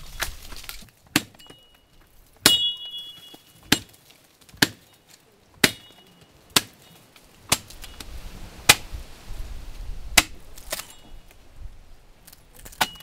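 Repeated sharp strikes, roughly one a second, several ringing briefly with a metallic tone.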